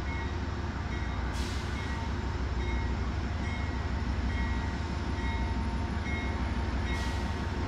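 Metro-North P32AC-DM diesel locomotive running with a steady low rumble, with a faint dinging about once a second and two short hisses of air, one about a second and a half in and one near the end.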